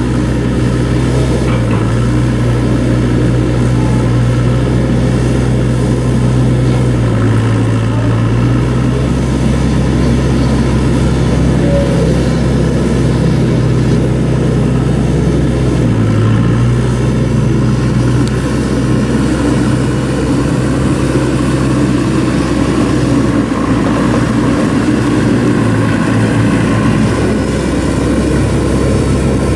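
Diesel engine of a 2007 Komatsu WB142-5 backhoe loader running steadily, its pitch dipping briefly three times.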